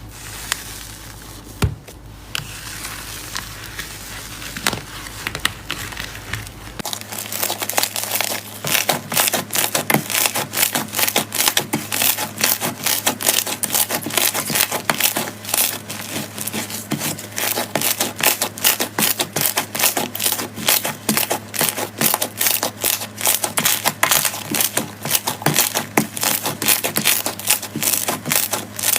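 Crunchy slime being pressed and squeezed by hand: soft squishing at first, then from about seven seconds in a dense run of crisp crackles, several a second.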